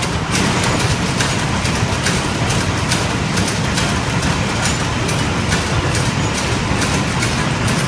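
19th-century line-shaft-driven wool carding machine running: a steady, loud rumble of rollers, gears and belts with a dense, irregular clatter of clicks.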